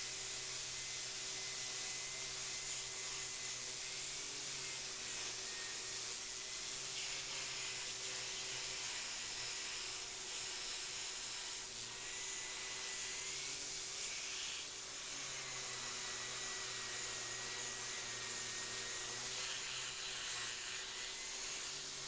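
Electric sander running steadily with 80-grit paper, sanding dried acrylic paint off the face of a treated-pine board: a steady hiss with a motor whine that wavers slightly in pitch as the load changes.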